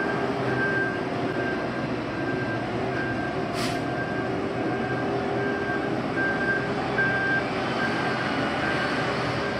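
Heavy road-paving machinery running steadily, with a reversing alarm beeping at an even pace a little faster than once a second. A short hiss comes about three and a half seconds in.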